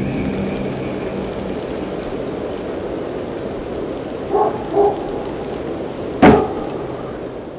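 A steady hiss like rain, with two short, quick animal-like calls about four and a half seconds in, then a single sudden loud hit about a second and a half later.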